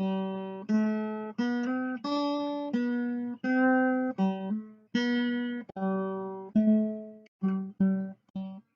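Music: a solo acoustic guitar picking a slow melody of single notes, each one ringing and fading before the next.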